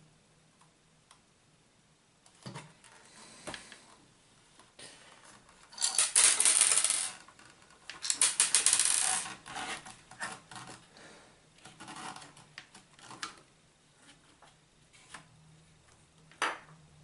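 The plastic shell of a Casio DH-100 digital horn being pulled apart and handled: scattered clicks and knocks, with two loud rattling clatters about six and eight seconds in.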